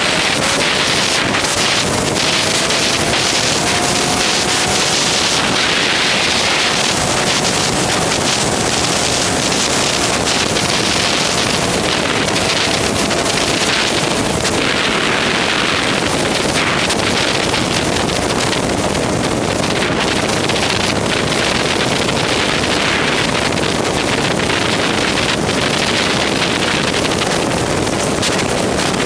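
Loud, steady wind rush over a helmet-mounted GoPro microphone on a motorcycle moving at road speed, with a faint tone rising in pitch over the first few seconds.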